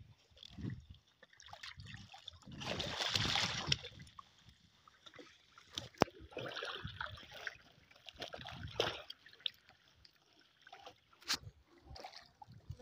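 Water splashing and trickling off a fishing net as it is hauled by hand over the side of a small boat, in uneven bursts with a longer splash about three seconds in. A couple of sharp knocks against the boat come about halfway through and near the end.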